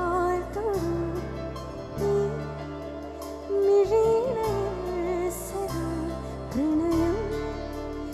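A woman sings a slow Malayalam film song live into a microphone, holding long notes with vibrato over sustained keyboard chords, with light ticking percussion.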